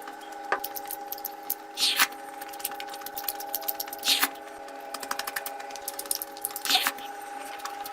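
Close-miked eating of curry: wet chewing and squishing with many small clicks, and three short slurping sounds about two seconds apart. A steady hum runs underneath.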